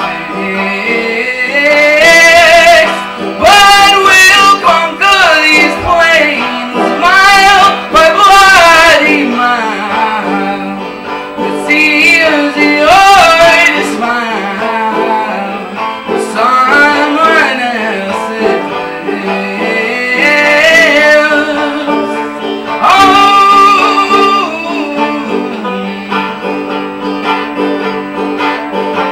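Banjo played at a steady pace, with a man's voice singing long, sliding phrases over it without clear words. The voice drops out a few seconds before the end, leaving the banjo alone.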